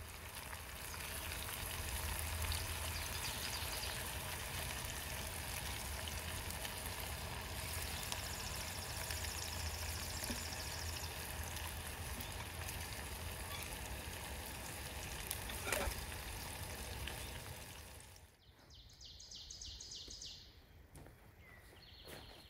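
Bacon sizzling and spattering in a small skillet over campfire coals, a steady crackling hiss with one sharp tap about sixteen seconds in. Near the end the sizzle stops and a bird chirps a short trill.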